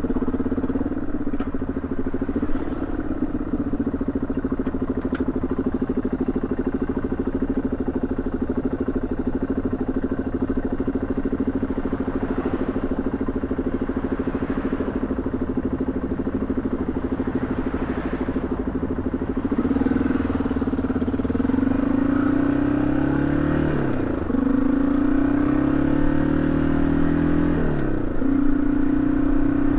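Yamaha XT225 Serow's single-cylinder four-stroke engine running at a steady cruise, then accelerating: the engine pitch climbs and drops back twice near the end as it shifts up through the gears.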